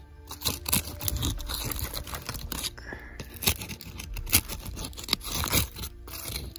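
Close, irregular scraping and crunching of soil and roots being dug away by hand, with many small crackles and clicks.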